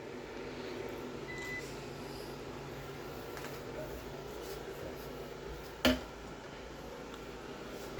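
A short, single high electronic beep about a second in, over a steady low hum, then one sharp click near six seconds.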